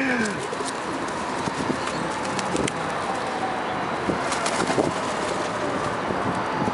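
Feral pigeons cooing now and then, a few short low calls over steady background noise.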